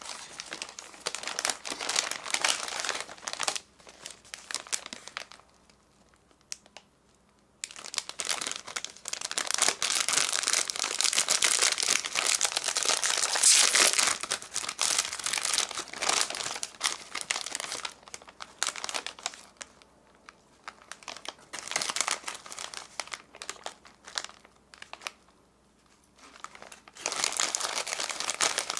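Crinkling plastic snack packets being handled in irregular spells with two short pauses. A foil-lined corn snack bag is worked and pulled open near the end.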